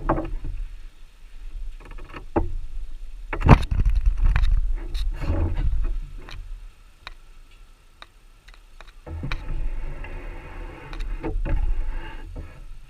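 Beehive parts and hive tool knocking and scraping as frames are handled, in scattered sharp knocks, with a low rumble of wind on the microphone. A steadier hum fills about three seconds near the end.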